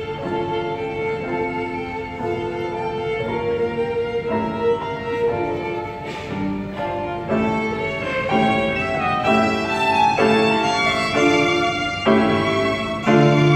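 Violin duet with grand piano accompaniment, playing a medley: held bowed notes shifting from chord to chord, growing louder near the end.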